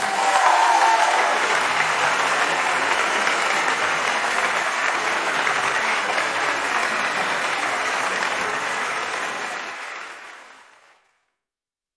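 Audience applauding, a steady clapping that fades out about ten seconds in and leaves silence.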